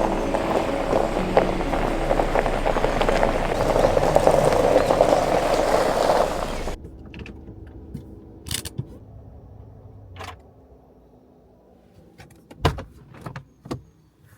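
Heavy rain mixed with background music with held notes, both cutting off suddenly about seven seconds in. After that it is much quieter, with a few separate knocks and clicks.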